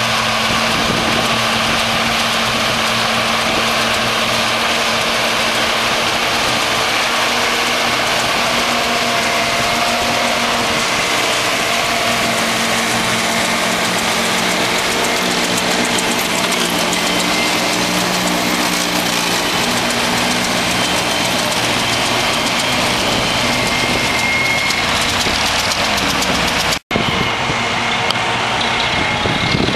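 Tractor engines running under load with a trailed precision-chop forage harvester picking up and chopping grass, a steady, dense machinery din. The sound drops out for an instant near the end.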